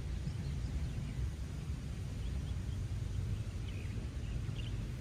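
Outdoor ambience: a steady low rumble with a few faint, short bird chirps scattered through it.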